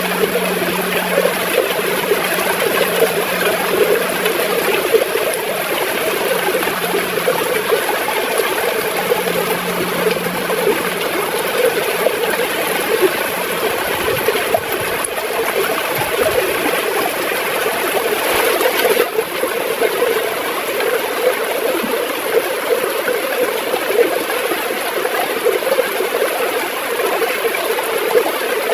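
River water gurgling and flowing steadily, with a constant bubbling rush.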